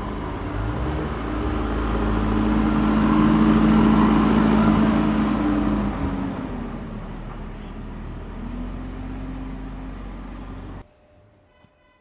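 Diesel engine of a backhoe loader with a front snow plough blade, running steadily as it plows a street and passes close by, growing louder toward the middle and then fading. It cuts off suddenly near the end, leaving faint chime-like tones.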